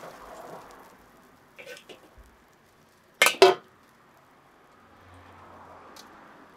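Metal dishes and utensils clinking: a few light clicks, then two loud clanks a little over three seconds in.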